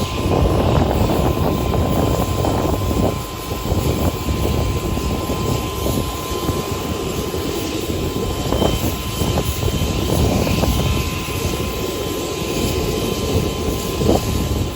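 Air Force One's Boeing 747 jet engines at takeoff power: a loud, steady rumble with a thin steady whine over it.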